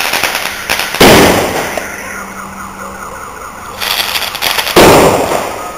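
Fireworks exploding: two loud bangs, about a second in and near the end, each trailing off in an echo, with rapid crackling just before each.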